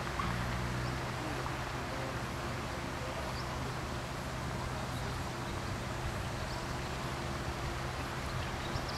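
A steady low hum over a faint, even background noise.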